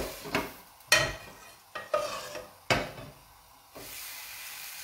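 Spoon clinking sharply against a frying pan about six times as vegetable broth is spooned over turkey rolls sizzling in it. An even sizzle sets in just before the end.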